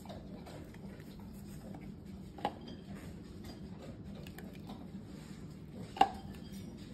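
Baking soda being shaken out of a cardboard box into a plastic cup: faint patter and rustle over a low hum, with two sharp taps, the louder one near the end.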